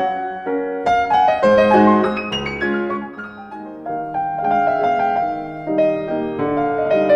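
Piano music, a melody of single notes over chords, softening briefly about three seconds in.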